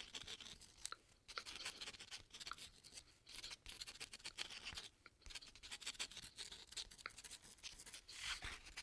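Pen writing: faint, irregular scratching strokes, with brief pauses between bursts of writing.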